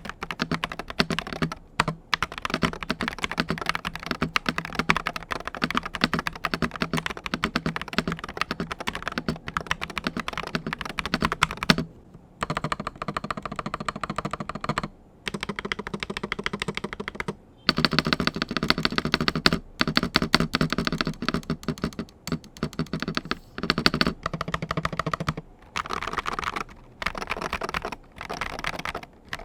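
Fast typing on an Attack Shark X82 Pro HE magnetic keyboard with Otemu magnetic switches and cherry-profile keycaps: a dense, continuous run of key clacks, broken by a few brief pauses.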